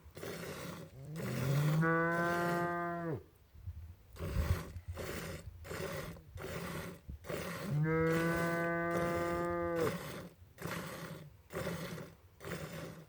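Milk squirting in quick regular streams, about two a second, as a cow is milked. The cow moos twice: two long moos a few seconds apart, each rising at the start and then held.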